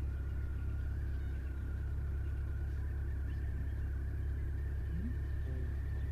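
A motor vehicle's engine idling: a steady low rumble throughout, with a faint thin steady whine higher up.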